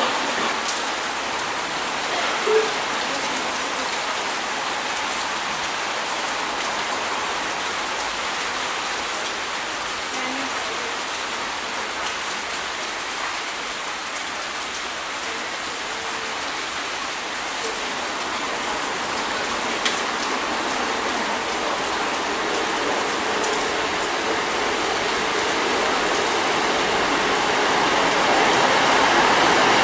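Steady rain falling, with the noise of an approaching Class 158 diesel multiple unit growing gradually louder over the last several seconds.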